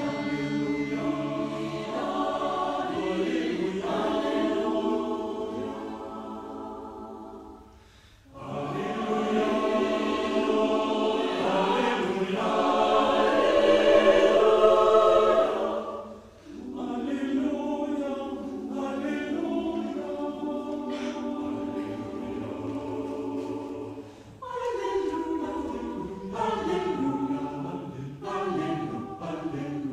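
Mixed choir of men and women singing, in phrases that break off briefly about eight, sixteen and twenty-four seconds in, swelling loudest just before the second break.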